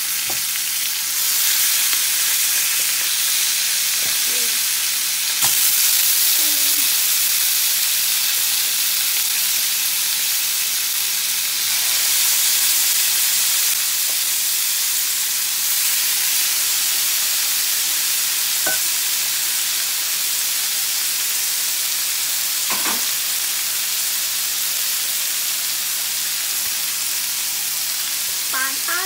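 Soy-marinated chicken drumsticks sizzling steadily as they pan-fry in oil in a nonstick frying pan. The sizzle swells a few times as more drumsticks are laid into the pan, with a few light clicks.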